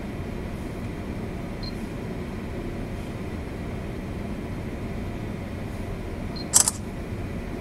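Steady low rumble of a lake freighter's engines and machinery, heard aboard while the ship is underway. Near the end there is one sharp double click.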